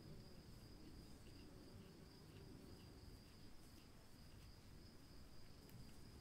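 Near silence: room tone with a faint steady high-pitched whine and a few faint ticks.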